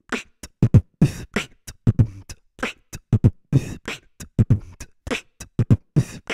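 Beatboxing: a quick, steady rhythm of low mouth kick drums alternating with sharp snare and hi-hat sounds.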